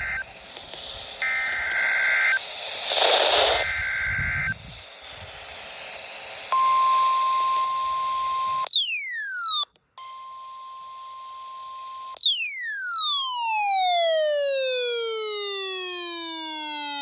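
Electronic alert tones over radio hiss: short two-note beeps at first, then a steady single-pitch warning tone, like the 1050 Hz NOAA Weather Radio warning alarm, sounding twice. Between and after, electronic tones sweep downward in pitch, the last one long and falling.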